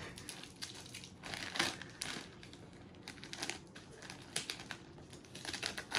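Gift packaging crinkling and rustling in irregular short bursts as a present is unwrapped.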